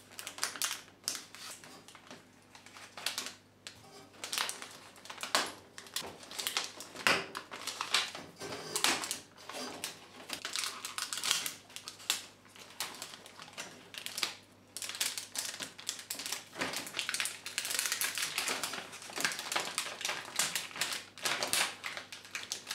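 Plastic clips on a washing machine's control-panel fascia being pressed and prised to free the circuit board, giving a string of irregular small clicks and rattles of plastic.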